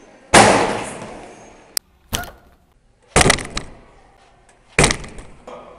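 Four loud bangs against metal school lockers, about a second or so apart, each ringing out in a long echo down the hallway; the first is the loudest.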